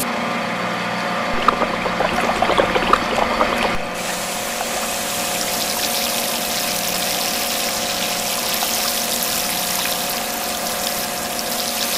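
Miniature electric water pump running with a steady hum, its water sputtering and crackling from a small brass spray nozzle for the first few seconds, then settling into a steady hiss of spray from about four seconds in.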